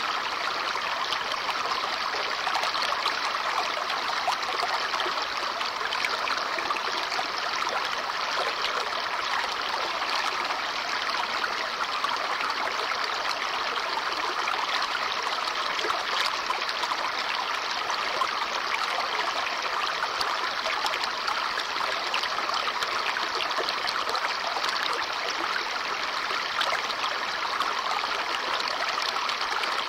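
Babbling brook: shallow water running and trickling over stones with a steady bubbling splash.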